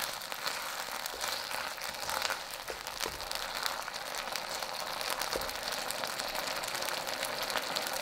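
Shredded pork sizzling and crackling in a thick sauce in a wok while a wooden spatula stirs it. There are a few soft knocks of the spatula against the pan.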